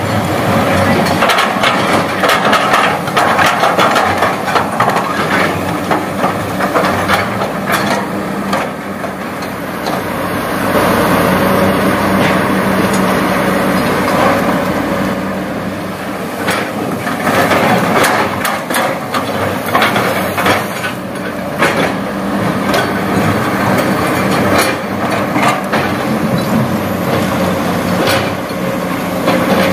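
Kobelco SK200 hydraulic excavator working: its diesel engine runs steadily while the steel bucket scrapes and digs through gravel and rock, with frequent clanks and rattles of stones.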